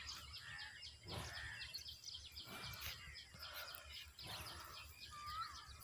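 Many small birds chirping in quick, high calls, over a low rumble of wind on the microphone.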